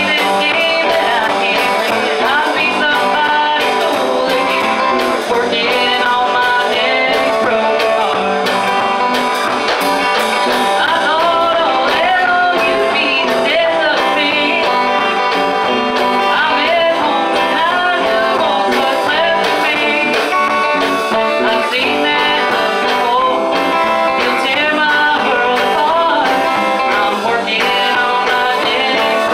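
Live band music: a woman singing over an electric guitar, with bass and drums behind her.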